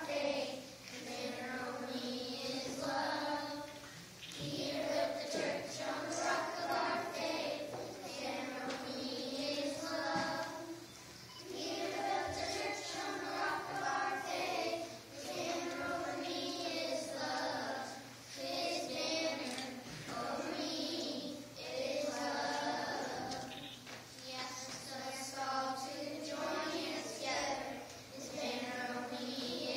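A group of young children singing a song together in unison, phrase after phrase with short breaks between lines.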